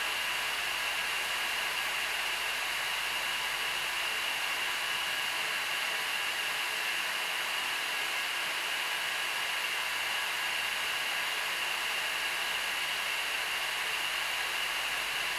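Steady hiss with a faint high whine, unchanging throughout.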